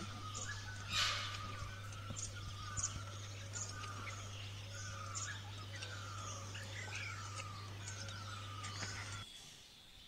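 Birds calling and chirping, with one short phrase repeated over and over and higher chirps above it. A steady low hum runs underneath. There is a single sharp knock about a second in, and the sound drops away suddenly about nine seconds in.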